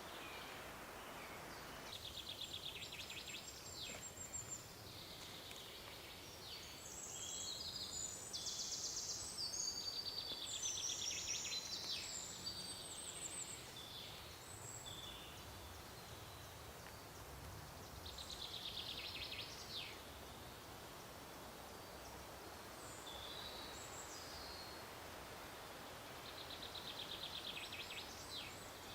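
Songbirds singing: repeated high trilled and chirping phrases from more than one bird, busiest about a third of the way in, over a faint steady background hush.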